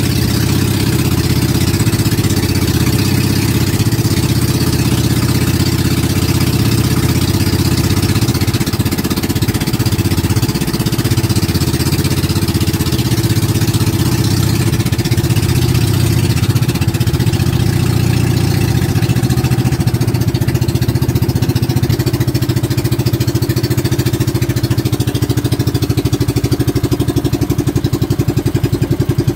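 A boat engine runs steadily at cruising speed, loud and low, with the rushing hiss of the hull and wake through the water above it. In the last several seconds the engine's regular beat grows more distinct.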